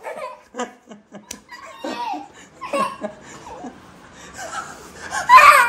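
A toddler laughing and giggling in short bursts, rising to a louder high-pitched squeal near the end.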